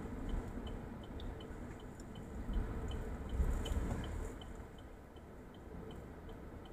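Car cabin noise while driving: a low steady rumble from the road and engine, with a faint, even ticking about three times a second.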